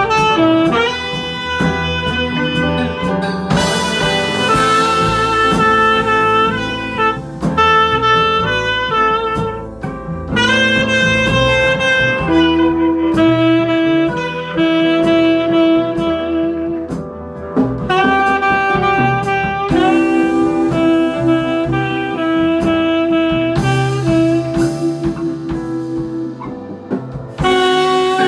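Small jazz group playing live: a tenor saxophone carries the melody, holding several long notes, over upright piano and a drum kit.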